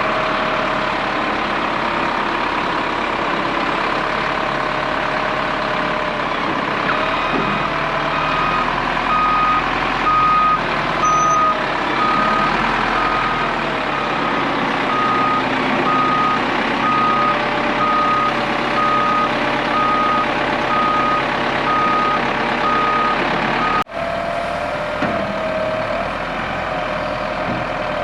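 A heavy vehicle's engine runs steadily while it reverses. From about eight seconds in, its backup alarm beeps in an even series, about once a second, then stops near the end.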